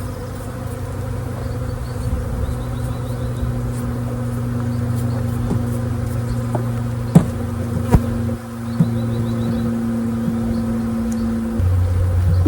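Swarm of package honeybees buzzing around the hive in a steady hum, with two sharp knocks about seven and eight seconds in. A deeper steady hum takes over near the end.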